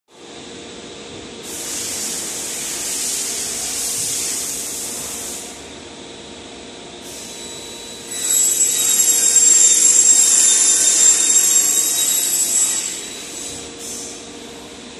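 A power tool running in two spells, a high hiss with a steady high whine, the second spell louder, over a steady background hum.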